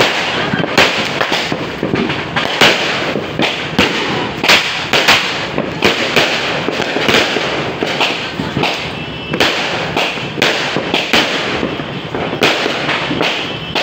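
Aerial fireworks going off close by in quick, uneven succession, several sharp bangs a second, with continuous crackling between them.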